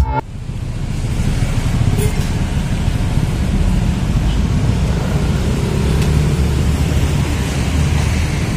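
Steady low rumbling outdoor noise.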